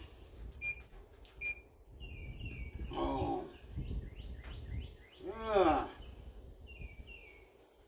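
Birds chirping, with two short beeps from the cooker's digital temperature controller in the first couple of seconds as its buttons are pressed. About three and five and a half seconds in, two louder calls rise and fall in pitch, over a low rumble.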